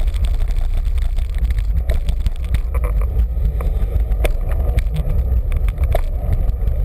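Steady low rumble of wind and road vibration on the microphone of a camera mounted on a moving road bike, with occasional sharp clicks and rattles from the bike.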